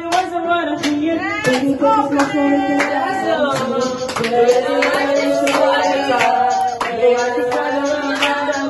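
A man singing karaoke into a microphone, holding long wavering notes over a backing track with a regular beat.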